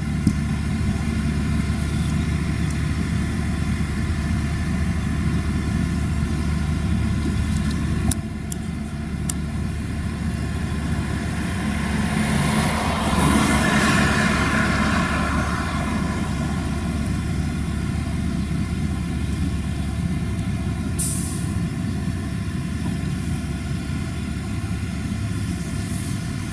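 Claas tractor's diesel engine running steadily under load while it pulls a Claas Liner 3600 rotary rake through cut grass. The sound swells for a few seconds about halfway through, and there is a short hiss about three-quarters of the way in.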